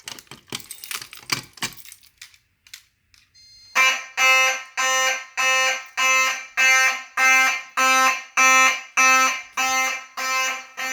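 Clicks and rattling while a fire alarm pull station is worked, then about four seconds in a fire alarm horn starts blasting in slow march code, about one and a half blasts a second (90 beats per minute), signalling the pull station's alarm.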